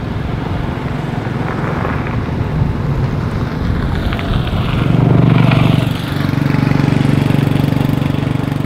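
A motor running steadily with a low, even hum, louder from about five seconds in.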